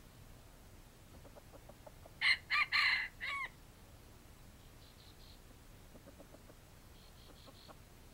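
A wild junglefowl rooster crowing once, a short clipped crow broken into four quick parts that ends abruptly, about two seconds in. Faint small ticks can be heard around it.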